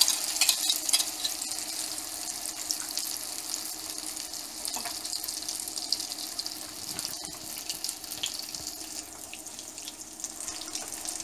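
Beaten egg mixture with onion and chilli frying in hot sesame oil in a small non-stick pan: a dense, steady sizzle and crackle. It is loudest just after the mixture hits the oil and eases off a little over the following seconds.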